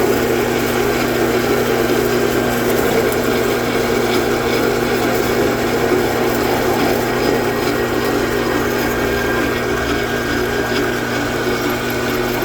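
Small metal lathe running steadily under power feed, its motor and gearing giving a steady hum with a high-speed steel tool cutting metal.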